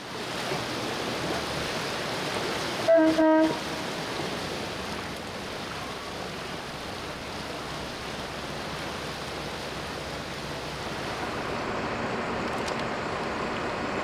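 Steady rushing noise of a motor boat under way at speed, engine and water together. About three seconds in comes one short boat-horn toot.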